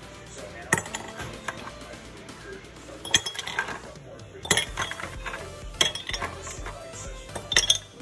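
Ice cubes picked out of a plastic container and dropped into a glass mug, clinking sharply about five times, over background music.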